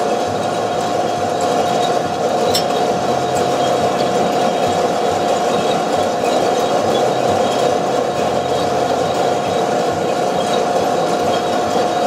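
Two-barrel Probat sample coffee roaster running steadily mid-roast, with the beans browning before first crack: an even rushing noise with a steady tone through it. A light click about two and a half seconds in.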